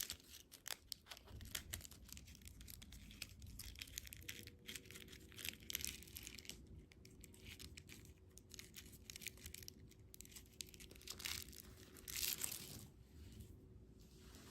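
Faint crinkling and tearing of candy packaging, a run of small irregular crackles with a louder rustle near the end.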